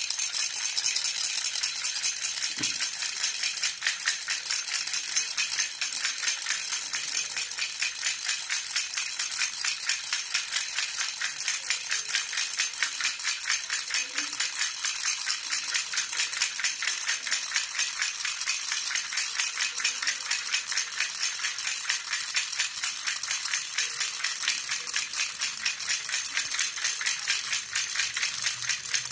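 Jhunjhuna baby rattle shaken steadily and quickly, a continuous high jingling rattle with no breaks.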